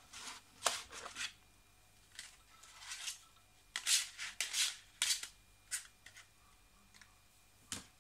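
Old laptop's disk drives seeking as Windows 95 shuts down: a dozen or so short scratchy clicks and rasps at irregular spacing over a faint steady whine.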